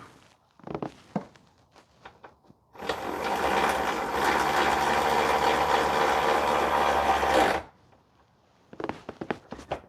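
Cordless power tool running steadily for about five seconds, driving in a bolt, starting and stopping sharply. Metallic clicks and knocks of the tool and socket come before and after it.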